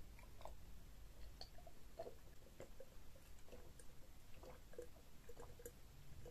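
Faint, close-miked mouth sounds of drinking from a glass: a series of short gulps and swallows with small wet clicks.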